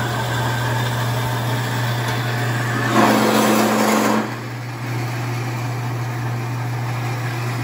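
Horizontal metal-cutting bandsaw running with its blade cutting a 45° miter through steel bar stock: a steady motor hum with blade noise, louder for about a second partway through.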